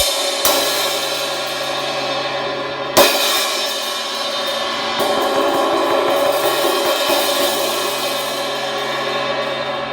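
Vintage 18-inch A. Zildjian & Cie cymbal, cracked around its edge, struck a few times at the start, hard again about three seconds in and lightly near five seconds, ringing in a long wash between hits. It sounds a little shaky, as a cracked cymbal does.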